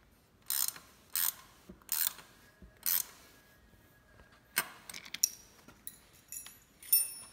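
Small metal-and-plastic clicks and scrapes as a bolt is fitted by hand through a bicycle reflector bracket on the front fork, about seven short bursts with the loudest near the end.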